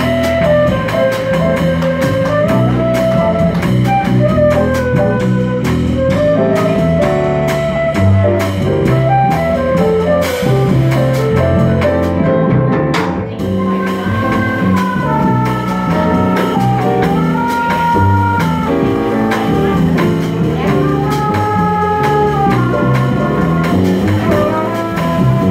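Live small-group jazz: a flute plays the melody over walking upright double bass and a drum kit with ride cymbal.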